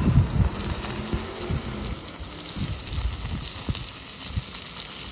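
Ribeye fat sizzling and crackling on a cast-iron Grizzler plate as it burns in a flare-up, with scattered sharp pops. Low thumps and rumbling in the first second or so.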